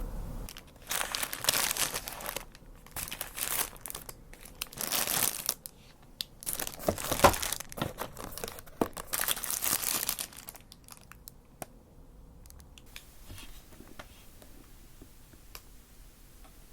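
Takeaway food packaging being crinkled and torn open in irregular bursts of rustling, which give way about ten seconds in to a quieter stretch with a few soft ticks.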